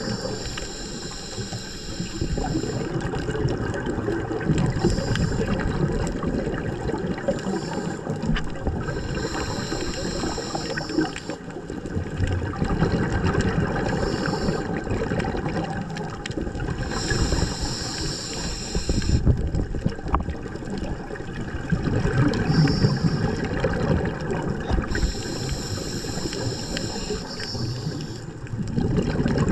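Scuba diver breathing through a regulator underwater: a hissing inhalation recurs every few seconds, with a low bubbling of exhaled air between them.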